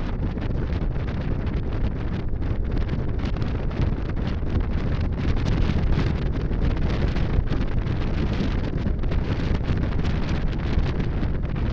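Wind buffeting the microphone of a camera on a moving motorcycle: a steady, gusty rush, heaviest in the low range, that covers the engine.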